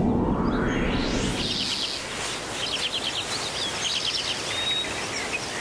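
A rising whoosh sweeps up as the low music fades in the first second or so. Then come songbirds chirping in quick short phrases over a steady outdoor hiss.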